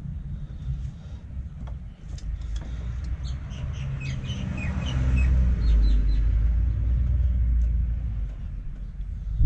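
A low rumble that swells to its loudest a little past the middle and then eases off, with a few short high chirps about halfway through.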